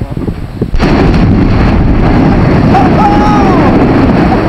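Volcanic eruption at a lava-spattering vent: a sudden blast about a second in, then a loud, continuous roar as the vent keeps erupting.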